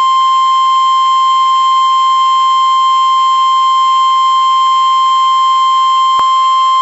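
NOAA Weather Radio's 1050 Hz warning alarm tone: one loud, steady, unbroken high-pitched tone that cuts off abruptly at the end. It is the alert that an urgent weather warning broadcast is about to follow.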